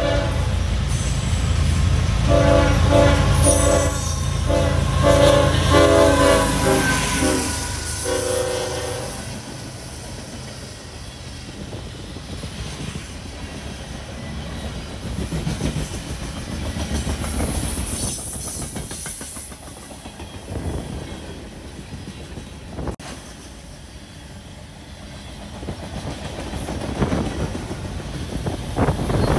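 Locomotive horn sounding several blasts, followed by the steady rumble and clickety-clack of a train rolling past.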